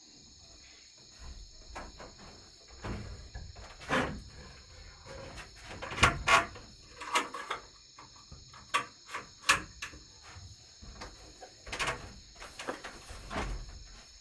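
Night insects, crickets, chirring steadily, with irregular knocks, taps and rustling as someone moves about on a wooden floor and handles bedding. The loudest knocks come a little after the middle.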